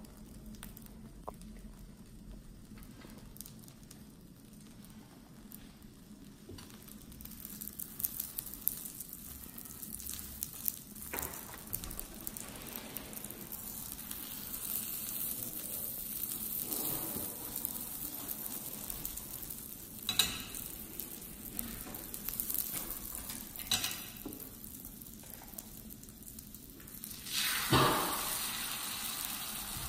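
Beaten egg frying in a hot nonstick pan. The sizzle is faint at first and grows louder from about seven seconds in, with a few short knocks of a utensil against the pan as the omelette is rolled. Near the end, fresh egg poured from a ladle hits the pan with a sudden loud burst of sizzling.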